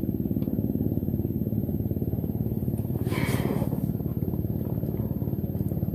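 A small engine running steadily with a low, even pulsing. About three seconds in there is a brief hiss.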